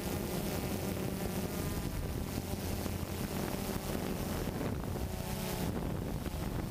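Quadcopter drone's motors and propellers buzzing steadily in flight, with wind noise on the microphone.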